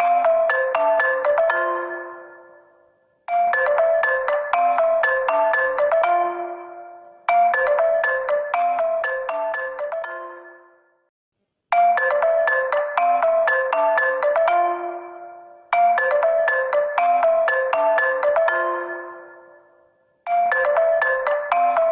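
HONOR smartphone ringtone looping: a short, quick melody of bright mallet-like notes that fades away, then starts over about every four seconds.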